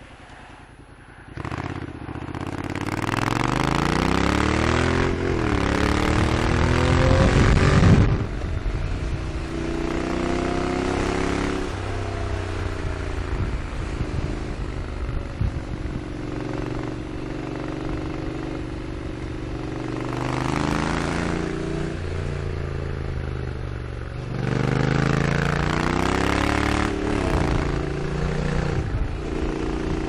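Honda NC750X parallel-twin motorcycle engine and exhaust under way. It pulls hard with pitch rising through a gear change, and the throttle shuts off suddenly about eight seconds in. It then cruises steadily and accelerates again near the end, with wind rush over it all.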